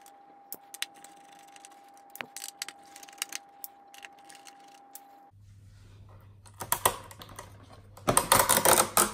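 Small scattered clicks and taps of a screwdriver turning out the screws that hold a laptop-style heat-pipe cooler bracket to a metal frame, then a denser, louder run of clicking and rustling near the end as hands handle the cooler.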